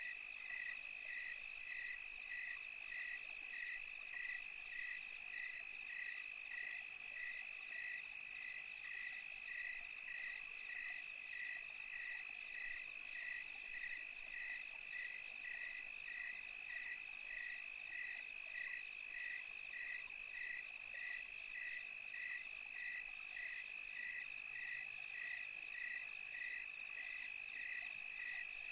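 Chorus of small calling animals: a steady high trill with a shorter chirp repeating about twice a second.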